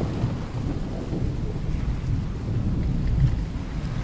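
Storm ambience: a continuous low rumble of thunder with rain, swelling briefly about three seconds in.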